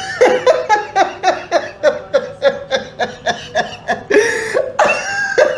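A person laughing hard: a long, unbroken run of short falling "ha" bursts, about three to four a second, turning breathier about four seconds in.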